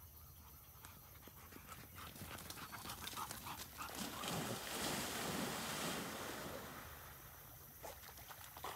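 Labrador retrievers plunging into a pond and splashing through the shallows. The rush of water builds from about two seconds in, is loudest around four to six seconds, and fades as the dogs swim off.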